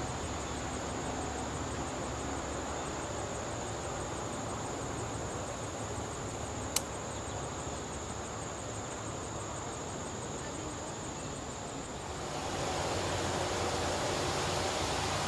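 Insects trilling steadily in a high, even chorus over a low rumble. There is one sharp click about seven seconds in, and the background noise grows louder a little before the end while the trill fades under it.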